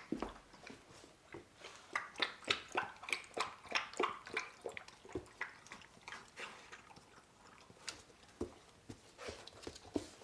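Dalmatian puppy lapping water, a quick run of wet clicks at about four a second that thins out toward the end.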